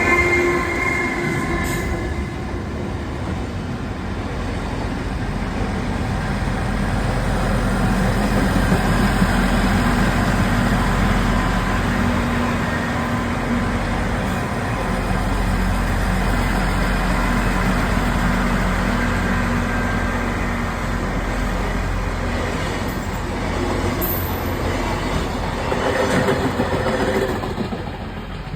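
KiYa E193 series East i-D diesel inspection train running on the line: a steady rumble of its diesel engine and wheels on the rails, with some wheel squeal. The sound builds after a few seconds and falls away near the end.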